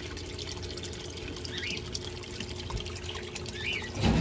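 Pond water pouring steadily out of a drain outlet and trickling through a shallow gravel channel.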